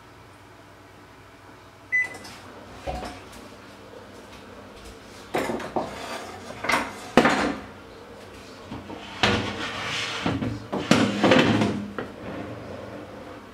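A sharp click with a short high beep about two seconds in, then a run of irregular knocks and clatters, as of things being handled in a kitchen.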